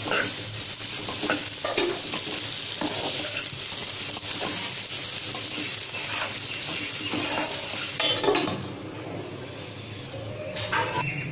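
Sliced ivy gourd (kovakkai) sizzling in oil in a pan while a spatula stirs and scrapes it, with short knocks against the pan. The sizzle drops lower after about eight seconds, and there is one more knock near the end.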